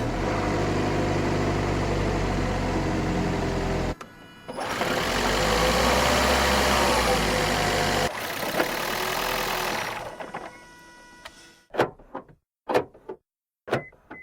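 Hybrid electric car sound effect: a steady low motor hum, then after a short break a louder run with a whine that rises and falls, fading out into several short separate bursts near the end.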